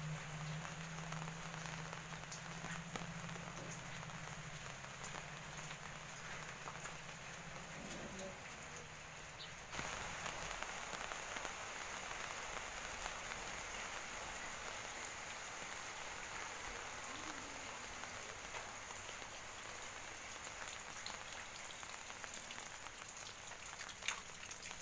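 Steady rain falling on roofs and wet paved ground. About ten seconds in it becomes louder and brighter. A faint low hum under the rain stops at about the same point.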